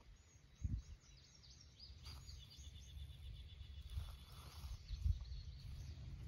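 Faint outdoor ambience of birds chirping in quick repeated high notes, with a short even trill in the middle, over a low rumble. A soft thump comes just under a second in.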